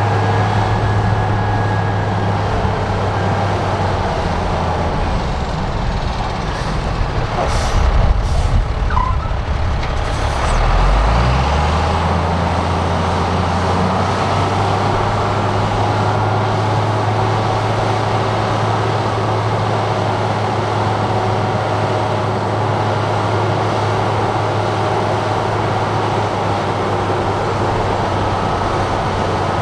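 Heavy diesel earthmoving machinery running steadily with a deep, even engine hum. About eight seconds in there is a short burst of knocks and noise, and around eleven seconds the engine note shifts before settling back to a steady run.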